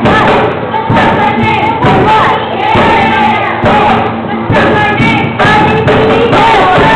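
Acoustic guitar strummed while several voices sing along loudly, with a regular thump about once a second.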